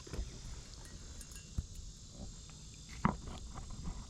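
Steady high insect chorus with a low rumble underneath, and a single sharp knock about three seconds in.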